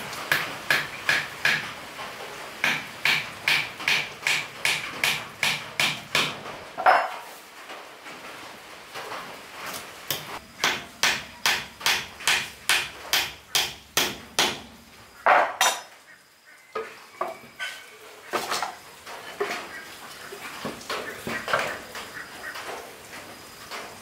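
Hammer blows in runs of about three a second, many strikes carrying a brief ringing note, with short pauses between the runs.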